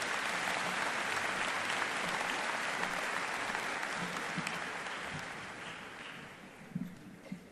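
Audience applauding, steady at first, then dying away over the last few seconds, with a few soft knocks near the end.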